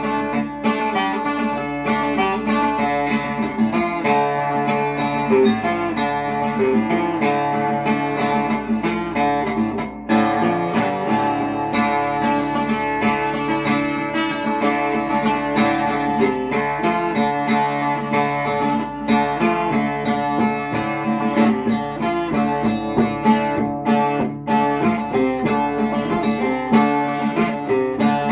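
Acoustic guitar music playing continuously, plucked and strummed notes.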